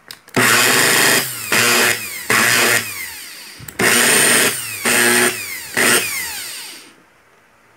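Electric drill's brushed universal motor, running open in its housing, triggered six times in quick succession, each run ending in a falling whine as the motor coasts down. The motor's carbon brushes are worn short and spark a little.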